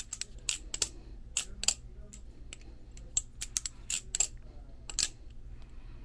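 Balisong (butterfly knife) being flipped, its handles and latch clicking and clattering sharply at irregular intervals, several clicks a second. The pivots have just been oiled, which makes the clicks a lot more muted and less tinny.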